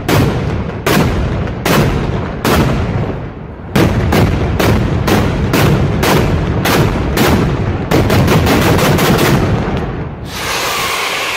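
Daytime aerial fireworks going off in a string of sharp bangs, at first about one a second, then about three a second, then a fast volley of many reports around two thirds of the way through, giving way to a steady hiss near the end.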